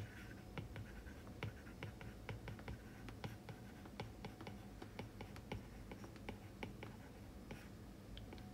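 Faint, irregular taps and clicks of a stylus writing on a tablet's glass screen, a few a second.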